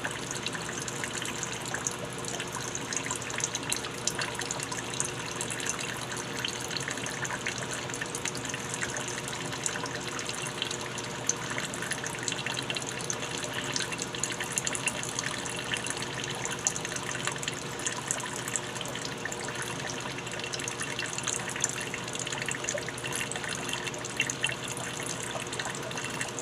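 Water pouring in a steady, continuous stream, with fine splashing throughout.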